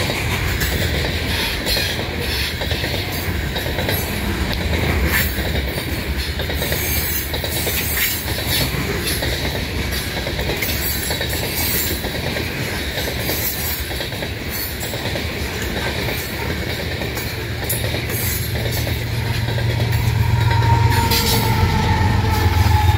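Coal train hopper cars rolling past: a steady rumble of steel wheels on rail, with repeated clicks over the rail joints and some wheel squeal. Near the end the rear distributed-power locomotive, a GE ES44AC, draws up and its engine hum grows louder.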